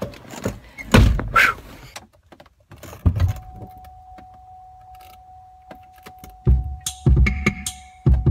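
A car door thunks shut about a second in. About three seconds in the car's engine starts and idles with a low rumble through its wrecked muffler, a steady tone sounding over it. Near the end it is revved in short, loud blips.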